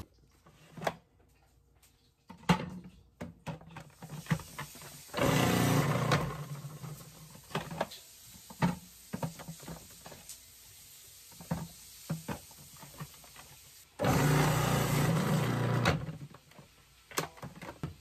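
Kitchen food-prep handling: scattered clicks and knocks of utensils, with two bursts of steady rushing noise, each lasting a second or two, about five seconds in and again about fourteen seconds in.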